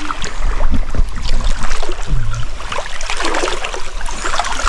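Shallow river water splashing and trickling over rocks, an irregular crackle of small splashes, with a low rumble on the microphone.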